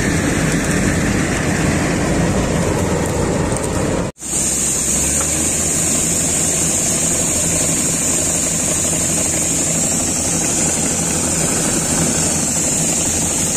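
Combine harvester running at the wheat harvest. After a cut about four seconds in, it is unloading grain from its auger into a tractor trolley, and a steady high hiss sits over the engine hum.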